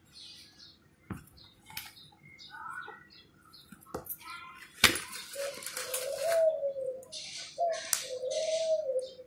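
Small metal bag-lock parts and panels handled on a workbench: scattered sharp clicks and taps, the loudest about halfway, with some rustling. From about halfway a bird's low cooing call rises and falls, repeated several times, each call about a second long.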